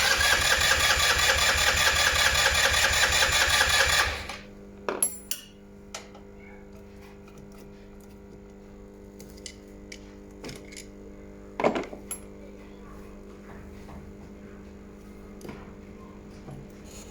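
Okinoi 150cc scooter engine cranked by its electric starter for about four seconds without catching, a fast even chatter that cuts off suddenly. This is the hard starting of a scooter with carburetor faults. A steady hum and a few light clicks follow.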